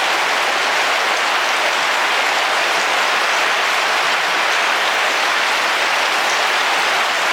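Heavy rain falling steadily on a car roof, heard from inside the car: a dense, even patter without breaks.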